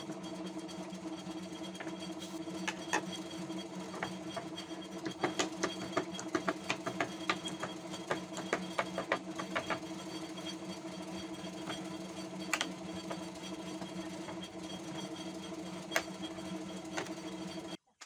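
Hammer striking a wooden door frame and panels, a run of quick knocks in the middle and a few single ones later, over the steady hum of an electric motor. The hum cuts off suddenly near the end.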